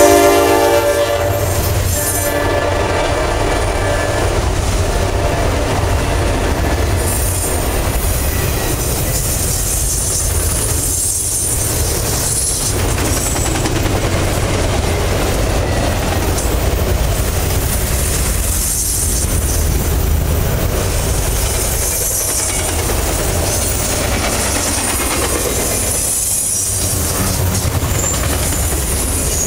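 Freight train's enclosed autorack cars rolling past close by: a steady, heavy rumble of wheels on rail with clacking over the joints. The locomotive's horn trails off at the very start.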